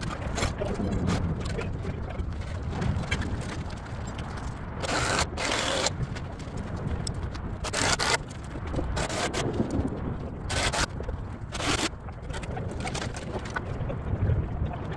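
Several short scraping noises, the longest lasting about a second around five seconds in, over a steady rumble of wind on the microphone.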